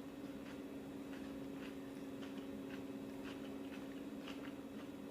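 A person chewing food with soft, irregular mouth clicks and smacks, over a steady low electrical hum.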